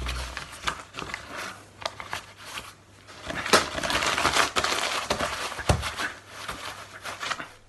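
A sheet of paper being crumpled and crushed into a ball by gloved hands, crackling in an irregular run of crinkles. The crackling is busiest from about three and a half to five and a half seconds in.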